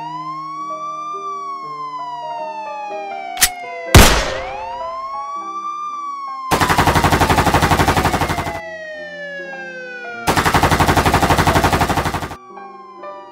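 Police siren wailing slowly up and down, with a sharp crack about three and a half seconds in and a loud bang just after. Then come two bursts of rapid machine-gun fire, each about two seconds long.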